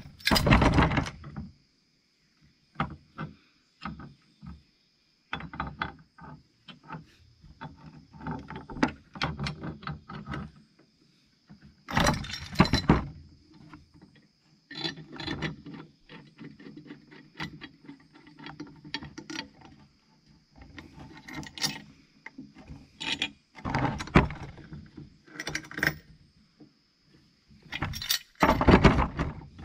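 Wilton vise being reassembled by hand: irregular metal clinks, rattles and knocks as its parts are handled and fitted together, with a few louder clanks.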